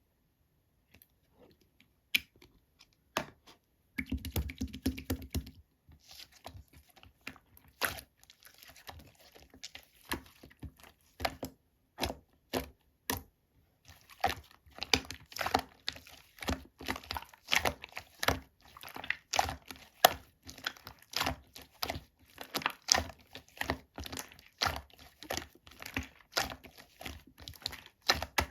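Slime being squeezed and poked by hand, making quick sticky clicks and pops: a few scattered ones at first, then dense runs from about four seconds in.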